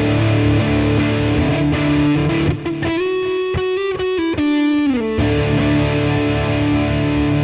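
Electric guitar on a neck humbucker through a germanium OCD-style overdrive pedal and a Roland Blues Cube Artist amp, set to a mild crunch. Chords ring out, with a short higher melodic phrase in the middle that slides back down into ringing chords.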